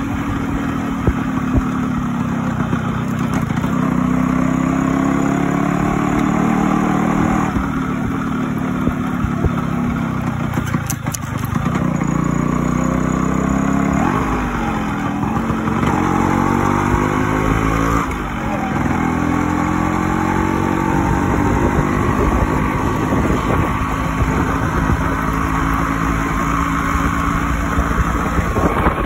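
Yamaha RX100's two-stroke single-cylinder engine running under a moving rider. Its pitch climbs and drops back sharply a few times as the bike is taken through the gears.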